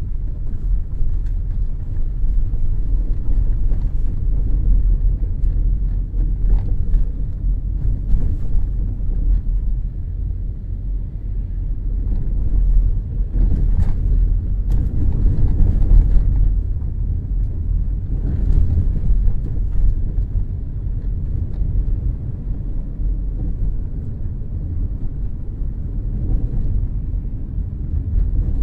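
Steady low rumble of a car's engine and tyres heard from inside the cabin while driving on a rough, broken road surface, swelling briefly about halfway through.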